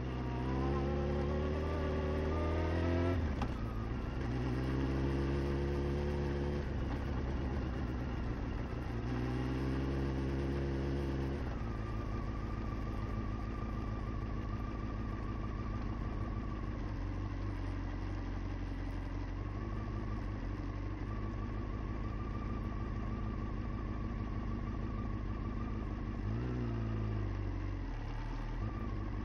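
Engine of a small handlebar-steered vehicle, heard from the rider's seat while driving. The revs rise three times in the first dozen seconds, dropping back between each rise. The engine then runs at a steady pitch, with a brief rise and fall near the end.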